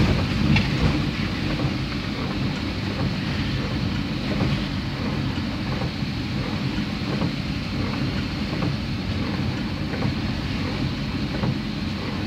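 Steady running noise of a vehicle driving through rain: engine hum and the hiss of rain and wet road. A louder low rumble swells near the start and fades.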